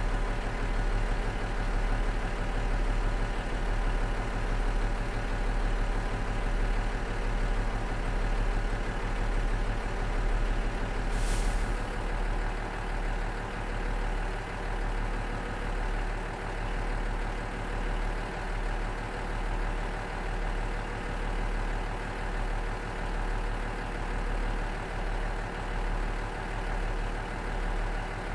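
Cummins DMF14HZ diesel engine of a KiHa 47 railcar idling steadily. About eleven seconds in there is a short burst of hissing air, after which the idle runs slightly quieter.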